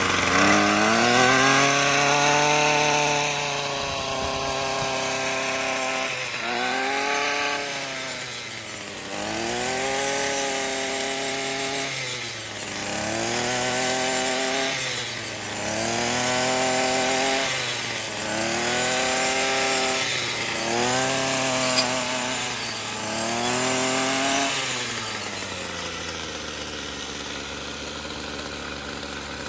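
Ryobi 25cc two-stroke string trimmer revved up and let back down repeatedly as its line head cuts through grass, then settling to a steady idle for the last few seconds.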